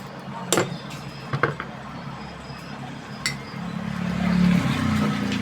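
Three sharp metallic clinks, about half a second, a second and a half and three seconds in, as tools and metal parts of a table fan knock together during a repair, over a low hum that swells near the end.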